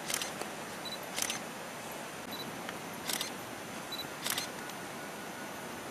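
Camera shutter firing four times, a second or two apart, each shot a quick double click preceded by a short high autofocus beep, over a steady faint hiss.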